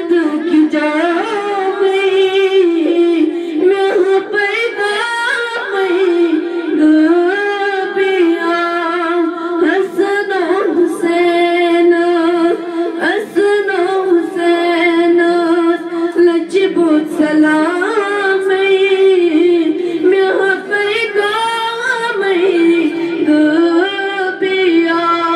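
A young woman singing a manqabat solo and unaccompanied, in long held notes that waver and glide between phrases.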